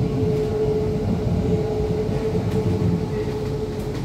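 Metro train running at speed, heard from inside the passenger car: a steady low rumble with a steady hum over it.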